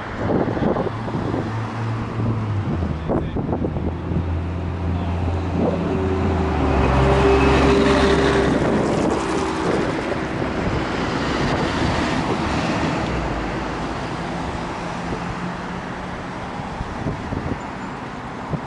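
A motor vehicle's engine passing by, with a steady low hum that grows to its loudest about eight seconds in and then slowly fades.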